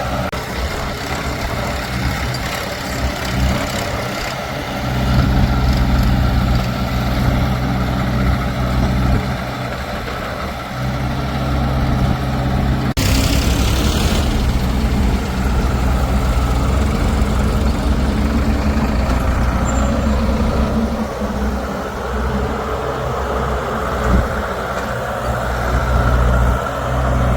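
Diesel engines of heavy farm and earthmoving machinery running steadily. About halfway through, the sound changes abruptly and there is a short hiss.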